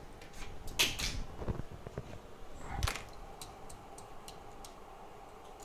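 Clicks and knocks of small tools and parts being handled on a repair workbench: two louder knocks about a second in and near three seconds, then a few light ticks.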